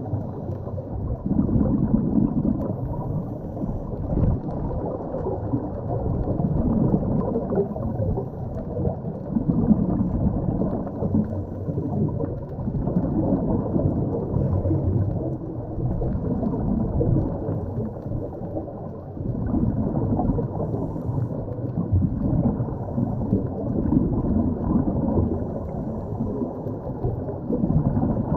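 Muffled underwater rumble of moving water, with no high sound at all, swelling and easing every few seconds.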